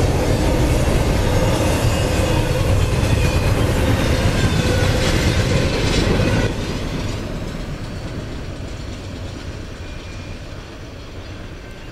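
CSX double-stack intermodal freight cars rolling past close by, a steady loud rumble of wheels on rail. About six and a half seconds in the last car goes by and the sound drops suddenly, then fades as the train moves away.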